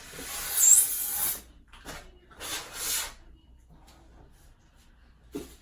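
Packing material of an iMac box rubbing and scraping as the computer is worked out of it, in two bursts: a longer one at the start and a shorter one about two and a half seconds in.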